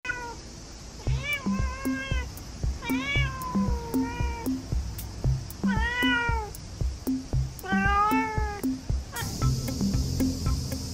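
A cat meowing repeatedly, about six drawn-out, rising-and-falling meows, over background music with a steady beat that grows fuller near the end.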